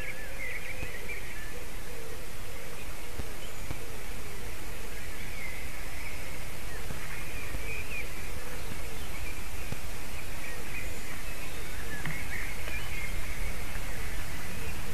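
White-tailed eagle whining: repeated high, wavering calls that come and go throughout, over a steady background hiss.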